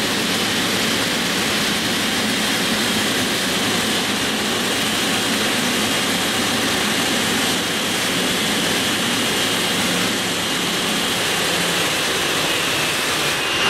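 Boeing 777-300ER's GE90 jet engines running at idle: a steady turbine noise with a constant high whine.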